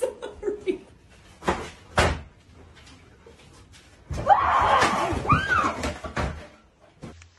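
Plastic wheelie-bin lid slamming, with a loud clattering commotion lasting about two seconds, preceded by two short knocks.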